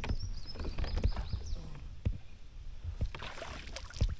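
Fishing reel being cranked while a hooked small bass is played and then splashes as it is swung out of the water, with clicks and knocks of the rod and reel against the kayak. A burst of splashing comes about three seconds in, and a sharp knock just before the end.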